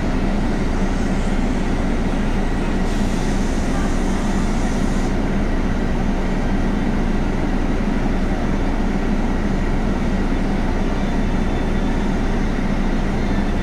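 Cabin noise inside a Scania Castrosua New City 18-metre articulated CNG bus: steady engine drone and rolling noise, with a faint high steady whine. A hiss is added for about two seconds, starting about three seconds in.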